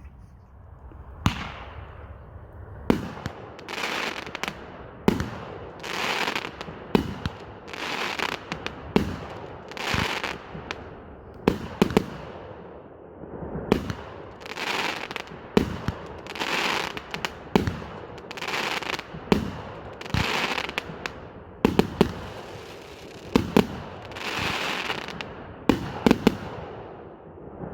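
Pyro Diablo 'Heroes' 21-shot fan cake firing: sharp shot reports about once a second, with a hissing, crackling noise between them.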